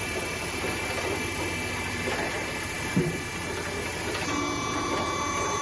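Wood-processing machinery running steadily, with a single knock about three seconds in. A steady high whine joins the running sound about four seconds in.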